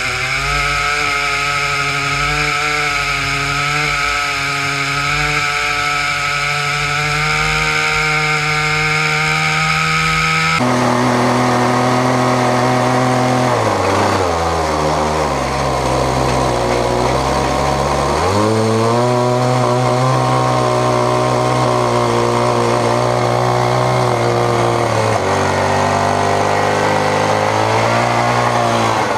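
Two big Stihl chainsaw powerheads, an 880 and an 084, drive the chain of an 87-inch mill bar at high revs as the dual-ended mill rips through a beech log. Past the middle the engine note drops for a few seconds, as the saws load down in the cut, then climbs back, and it dips again near the end.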